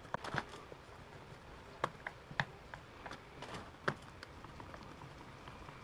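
Scattered small clicks and ticks of a screwdriver driving screws into an electric fan's plastic switch housing, with the plastic parts knocking lightly as they are handled.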